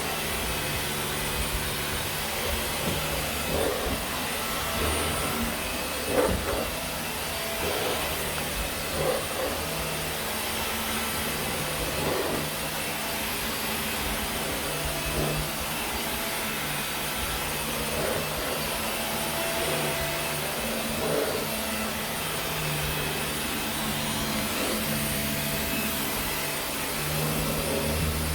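Dyson vacuum cleaner running on carpet as it is passed over the pile to lay down lines. A steady motor hum rises and falls a little every few seconds.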